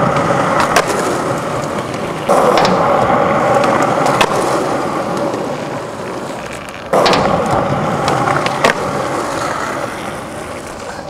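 Skateboard wheels rolling loudly over a skatepark surface, a steady roar that starts up abruptly twice and fades off after each start. A few sharp clacks of the board come through the roll.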